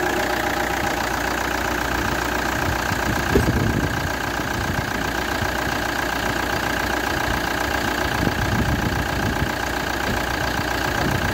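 Hyundai Terracan's 2.9 CRDi four-cylinder common-rail turbodiesel idling steadily under an open hood, with a steady high whine over the diesel clatter. Its Delphi injectors have just been repaired, and it runs evenly. One brief knock comes about three seconds in.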